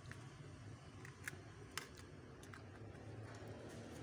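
A few faint, sharp clicks and taps as an Oppo A3S phone's mid-frame and a thin metal scraping tool are handled, over a low steady hum.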